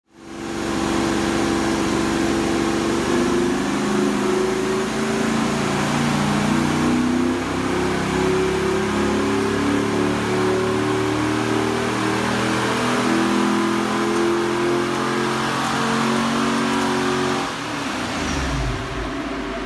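Chevrolet Camaro's LS1 V8 running loudly under load on a chassis dyno during a baseline power run. About seventeen seconds in the throttle comes off and the revs fall away.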